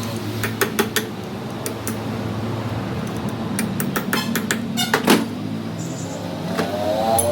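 Workshop handling noises: scattered sharp metal clicks and knocks, with a quick rattle and a louder knock about five seconds in, over a steady low machine hum.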